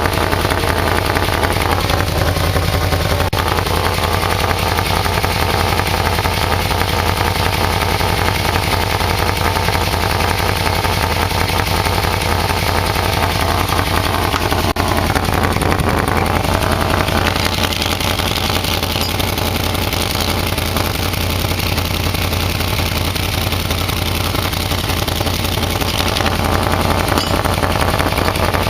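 Yamaha VMax's V4 engine idling steadily through a muffler perforated with drilled holes, which makes its exhaust quite a bit louder. The sound shifts a little about halfway through.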